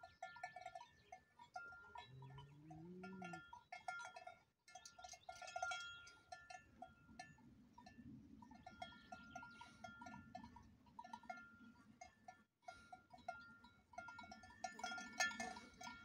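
Bells on grazing cattle clanking faintly and irregularly, a few strikes at a time. A short low moo rises and falls about two seconds in.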